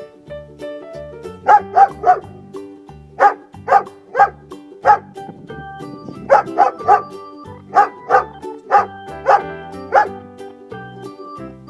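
Dog barking in quick runs of two or three barks, repeated over and over above steady background music.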